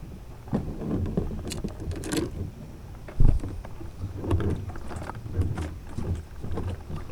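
Fishing gear being carried and handled: irregular knocks, rattles and footfalls, with one loud thump about three seconds in.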